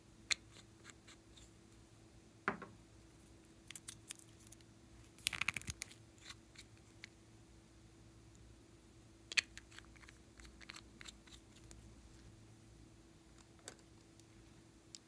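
Sparse faint clicks and taps of a nail polish bottle and its brush being handled and dabbed onto slime over a glass bowl, with a quick run of clicks about five seconds in. A faint steady hum lies underneath.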